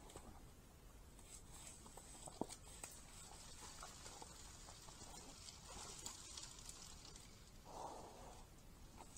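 Faint rustling and small clicks of wild boars rooting and shuffling through dry leaf litter, with a short louder huff near the end, over a steady trail-camera hiss.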